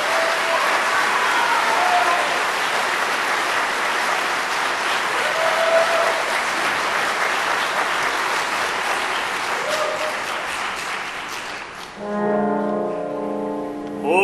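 Audience applauding for about twelve seconds, fading near the end. Then an orchestra comes in with a held brass chord.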